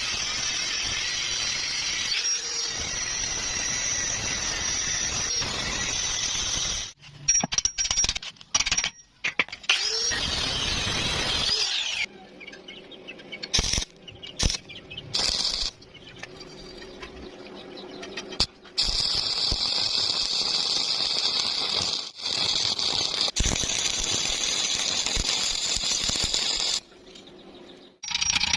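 Electric arc welding on mild steel: a steady hissing arc in several runs of a few seconds each, the arc cut off and struck again between runs.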